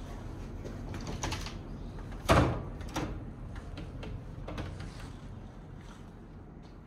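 A sharp thump about two seconds in, among lighter clicks and knocks, over a low steady rumble.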